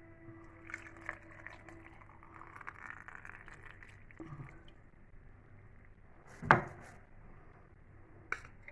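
Water pouring into a glass jar packed with cucumbers for pickling, with small clicks, then a single loud sharp knock of glass about six and a half seconds in.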